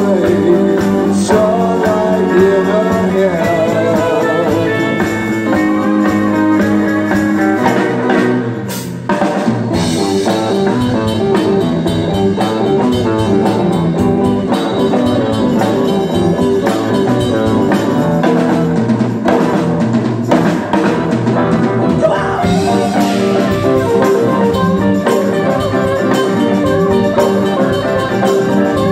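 Live rock band playing with electric guitar, bass guitar, drum kit and keyboard. The music dips briefly about nine seconds in.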